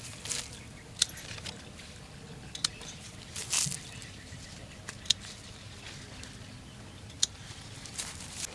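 Guava fruit being picked by hand among the branches: scattered sharp snaps and clicks, about seven over several seconds, with some rustling.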